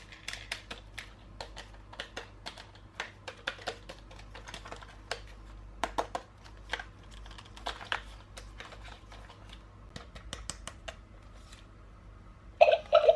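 Light, irregular plastic clicks and taps from toy parts and packaging being handled, several a second, easing off near the end. Just before the end a much louder sound cuts in.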